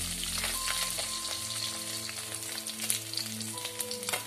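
Fish frying in hot oil in a wok: a steady sizzle full of small crackles and pops.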